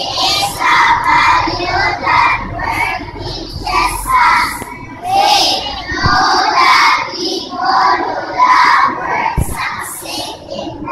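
A group of young children singing together in unison, loud and in short rhythmic phrases.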